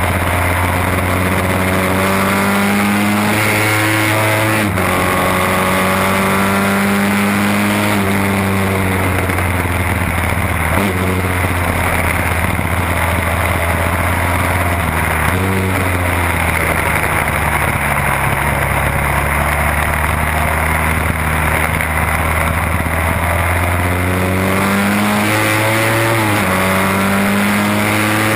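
1968 Seeley Norton Commando's parallel-twin engine racing under hard acceleration, heard onboard. Its pitch climbs and then drops sharply with each upshift several times, holds lower and steadier for a stretch midway, and climbs again near the end, with wind rushing over the bike.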